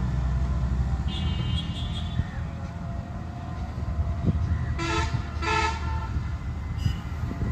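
Horn sounding two short blasts about half a second apart, over a steady low engine rumble; a fainter, higher horn-like tone sounds about a second in.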